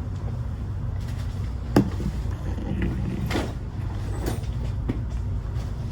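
Gun range background: a steady low rumble with several sharp knocks, the loudest about two seconds in and fainter ones after.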